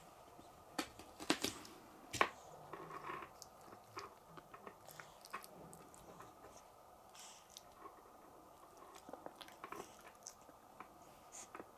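Pug puppy chewing and gnawing, a faint run of irregular crunches and small clicks, with two sharper clicks in the first couple of seconds.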